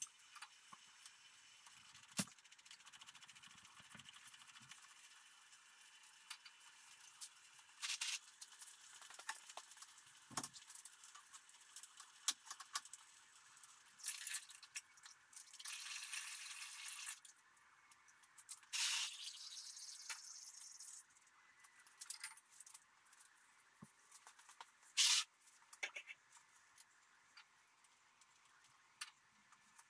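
Faint, scattered clicks and clinks of hand tools on metal while a truck's transfer case is unbolted from underneath, with a short hiss about halfway through.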